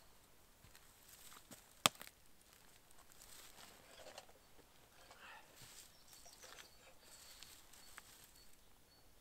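Footsteps and rustling in dry heath and brush as a hiker with a heavy backpack climbs over rocks and sits down, with scattered crackles and one sharp click about two seconds in. Faint high bird chirps repeat through the second half.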